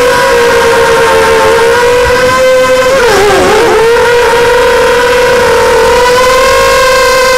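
An FPV racing quadcopter's brushless motors and propellers whining steadily. About three seconds in the pitch dips and wobbles briefly, the throttle easing off and coming back, then it steadies again.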